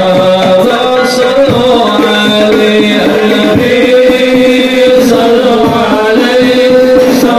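Hadroh music: rebana frame drums played in a steady rhythm under voices singing a sholawat melody.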